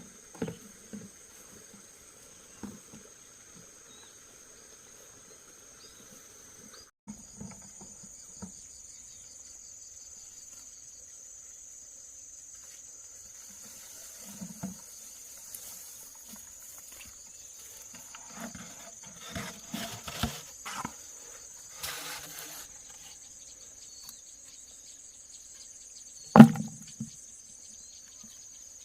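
Steady high-pitched trilling of insects, with scattered soft knocks and rustling of work by hand. Near the end comes one loud, sharp knock.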